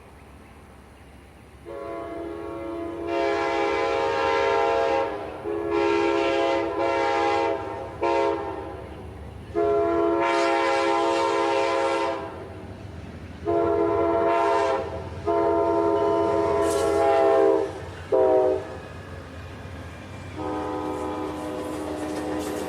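Amtrak P42DC locomotive's multi-chime air horn sounding the grade-crossing signal: long, long, short, long, played twice. A further long blast starts near the end, over the low rumble of the approaching train.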